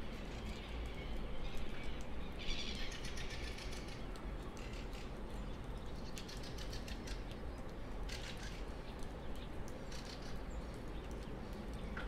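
Morning birds calling and singing over a steady low rumble of outdoor background noise. A rapid trill stands out about two and a half seconds in, with another burst of calls around eight seconds.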